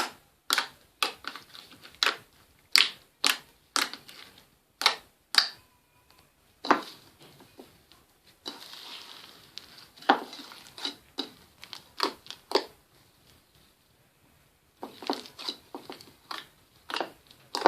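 Slime being squeezed and kneaded by hand, giving sharp, wet clicks and pops at irregular intervals, with a soft crackly hiss partway through and a pause of about two seconds near the end.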